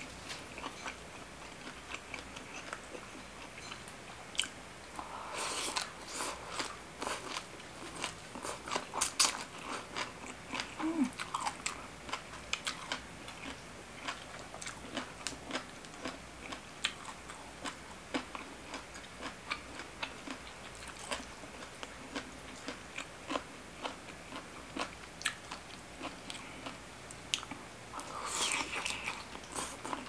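Close-up chewing and crunching of a mouthful of spicy Thai seafood papaya salad (som tam), with many small wet mouth clicks. Louder, denser crunching comes about five seconds in and again near the end.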